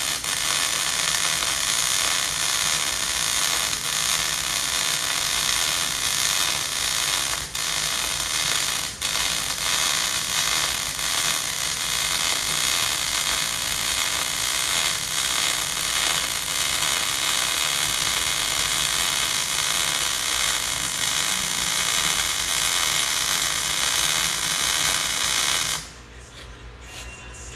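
MIG welding arc crackling steadily as a bead is run, with two brief breaks about seven and nine seconds in. The arc stops about a second and a half before the end.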